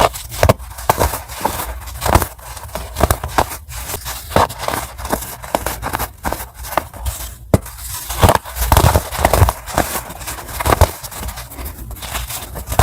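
Fresh white baking soda being snapped and crushed, a dense, continuous run of crisp crunches and crackles, with a few heavier crunches about two-thirds of the way through.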